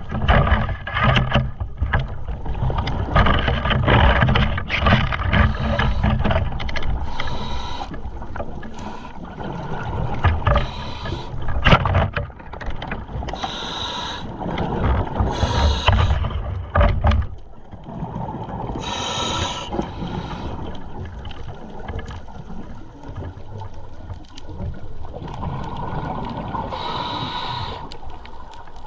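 Underwater rush and rumble of water moving past a diver's camera as he swims along a reef, with many scattered clicks and knocks. About seventeen seconds in the rumble drops away, leaving a softer steady hiss broken by a few short louder hisses.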